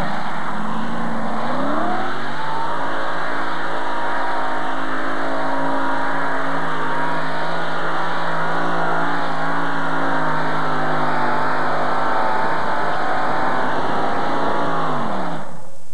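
Heavy modified pulling tractor under full load on the sled. Its engines climb in pitch about two seconds in, hold at steady high revs down the track, then fall away and cut off just before the end as the pull finishes.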